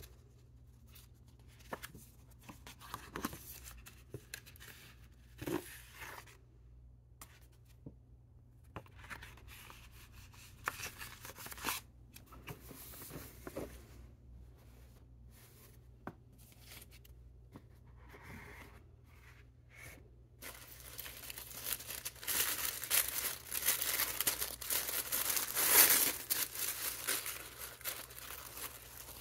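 Packaging being handled: light taps and scrapes of a cardboard gift box, then from about two-thirds in a continuous crinkling and tearing of tissue paper as its sticker seal is pulled open, loudest near the end.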